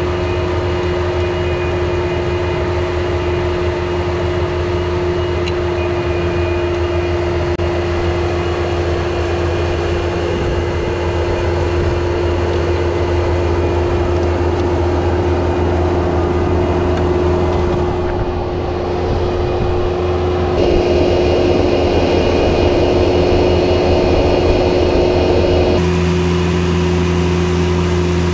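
Bobcat T190 compact track loader's diesel engine running steadily under load as its soil conditioner attachment churns through turf, with a steady whine above the low drone.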